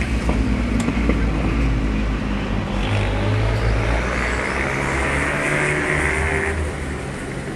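Ice speedway motorcycles racing, their single-cylinder engines running hard together. The pitch shifts as the riders lap the oval.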